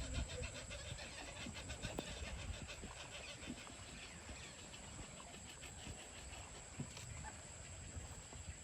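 Faint outdoor ambience: rapid, evenly repeated high chirping, fading after the first few seconds, over a low rumble with a few soft knocks.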